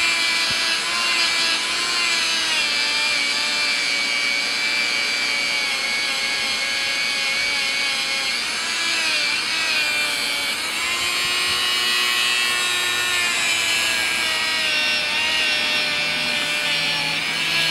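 Dremel rotary tool running a small flat wire wheel brush against the back of a mirror, scrubbing off the silver backing paint. A steady high motor whine over a scratchy hiss, its pitch wavering a little throughout.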